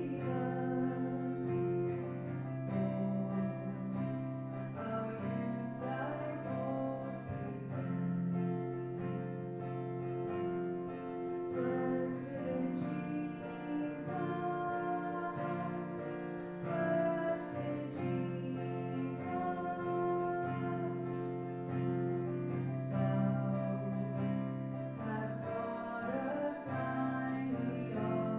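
Music with guitar and held chords that change every couple of seconds.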